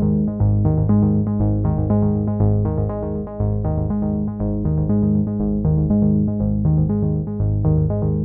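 Background music: quick, evenly repeated notes over a low, steady bass line.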